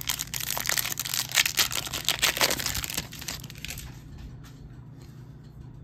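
Trading-card pack wrapper crinkling and tearing open: a dense run of crackles that dies away after about four seconds.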